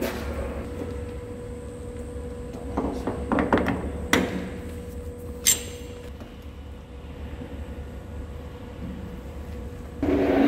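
Metal lathe running with a steady low hum and a faint whine, with a few metallic clunks and a sharp click about three to five and a half seconds in as tooling on the quick-change tool post is handled.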